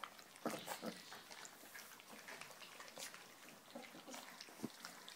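Litter of three-week-old flat-coated retriever puppies eating soft food from steel bowls: many small, irregular, overlapping smacking and lapping sounds.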